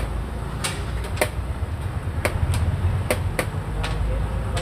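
Sharp clacks of xiangqi pieces being set down on wooden boards, about eight scattered irregularly over a few seconds, over a steady low rumble.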